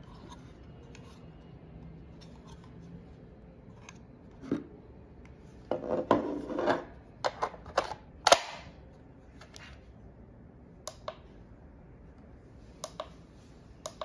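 Hard plastic clicking and scraping as a battery adapter is handled and slid onto a Makita 18V lithium-ion battery pack. There is a dense clatter around six to seven seconds in and one sharp click a little after eight seconds as the adapter seats. A few light clicks come near the end.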